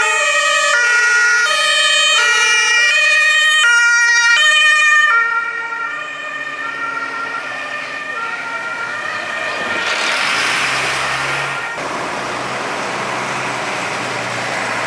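German two-tone emergency siren (Martinshorn), switching back and forth between two pitches several times and fading out about five seconds in. After that, the diesel engines of fire engines driving past, loudest about ten seconds in.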